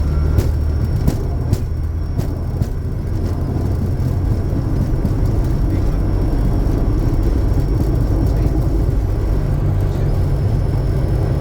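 Bombardier Challenger 350 business jet heard from inside the aircraft: a steady, loud low rumble of its turbofan engines and airflow with a faint high whine, and a few sharp clicks in the first second or two.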